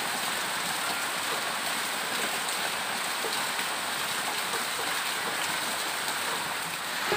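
Heavy rain falling steadily as a constant hiss, with runoff streaming off a roof edge.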